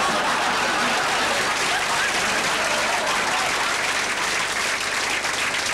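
Studio audience applauding steadily, with some laughter mixed in near the start.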